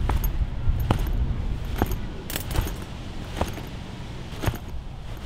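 Footsteps on pavement, about one a second, with a light metallic jingle on some steps, over a low steady rumble.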